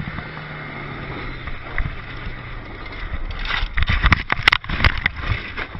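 Quad bike (ATV) engine running, then from about three seconds in a rapid series of loud knocks and thuds as the quad crashes and tips over.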